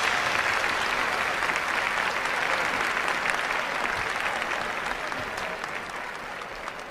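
Large audience applauding after a live song ends, dying away slowly.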